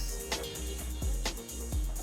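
Background music: an electronic track with a steady beat, a bass pulse and held synth notes.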